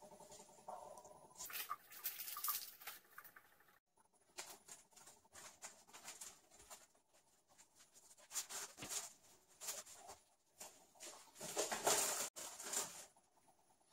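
Mylar foil balloon crinkling and rustling in irregular bursts as it is unfolded, shaken out and fitted by hand, played back at double speed.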